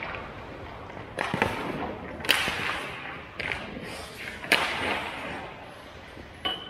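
Ice hockey play in an indoor rink: about five sharp cracks of sticks and puck, the loudest around two and four and a half seconds in, each trailing off in the hall's echo, over the scrape of skate blades on the ice.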